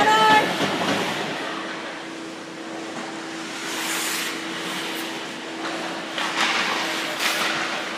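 Ice hockey rink ambience. A steady hum runs underneath, and skate blades scrape across the ice about halfway through and again in a few quick strokes near the end. A short shout ends right at the start.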